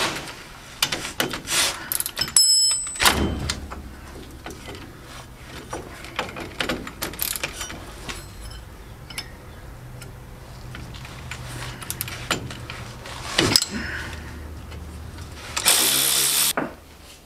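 Hand ratchet clicking and small metal tool knocks while the tail shaft of a 1975 Daihatsu F10 is unbolted from underneath, with a louder clank shortly before the end. Near the end comes a loud rush of noise about a second long.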